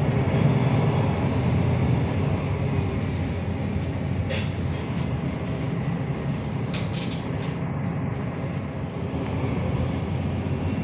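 MAN NL323F A22 city bus on the move: its diesel engine and drivetrain run with a steady low drone, a little louder in the first couple of seconds.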